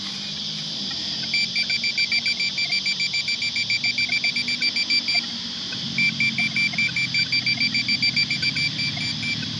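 Metal detector pinpointer beeping rapidly in two long runs with a short break, about nine high beeps a second, the fast pulsing of a target close by. A steady high insect chirr runs underneath.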